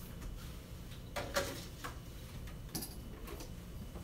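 A few faint clicks and light knocks scattered over a few seconds: a lollipop mold being set into an open refrigerator.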